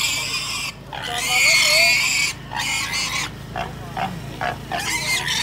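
A pig squealing in repeated shrill screams while it is handled in a tied sack. The longest scream lasts about a second and a half.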